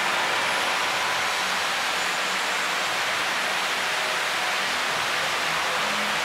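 Steady rushing noise, even and unbroken throughout, with no distinct sounds standing out from it.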